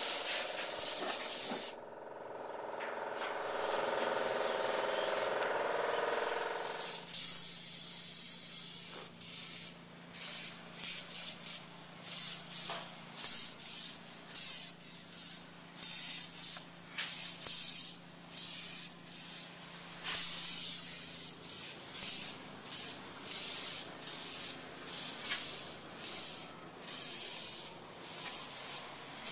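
Polyurea spray gun hissing as coating is sprayed onto steel, at first in a steady stream over a whining tone, then from about seven seconds in in short on-off bursts, roughly one a second, over a low steady hum.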